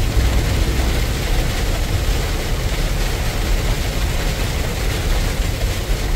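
Inside a Peterbilt semi truck's cab driving through heavy rain: the engine and road give a steady low rumble under an even hiss of rain on the windshield and cab.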